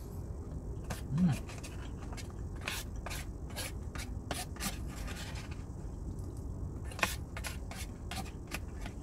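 Eating sounds: a plastic spoon scraping and tapping in a paper food box, with chewing and mouth clicks, and a short 'mm' hum about a second in. A low steady rumble lies underneath.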